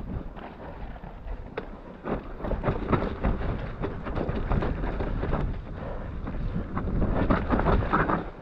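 Mountain bike rattling down a muddy, rocky trail: tyres rumbling over stones and roots, with the frame and chain knocking. Wind buffets the microphone throughout. It gets rougher and louder about two seconds in.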